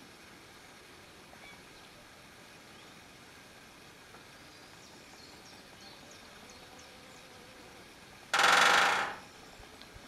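Great spotted woodpecker drumming on a metal roof: a single rapid roll of strikes, under a second long, with a metallic ring, near the end. The drumming is the woodpecker's territorial signal, used in place of song.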